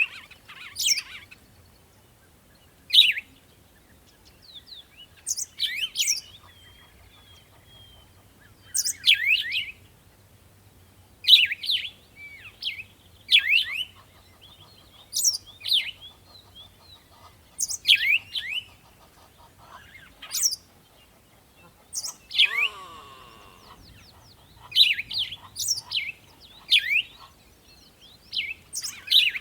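Birds chirping: short, sharp, high calls repeated every second or two, with one different, lower call in quick sweeping notes about twenty-two seconds in.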